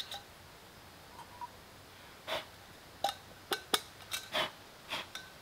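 Metal camping cookware handled at close range: a series of light clinks and scrapes, a few of the clinks ringing briefly.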